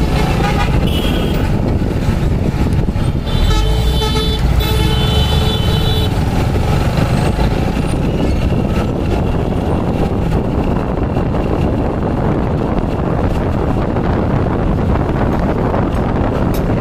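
Road traffic with a vehicle horn honking for a few seconds, starting about three seconds in, over a steady low rumble.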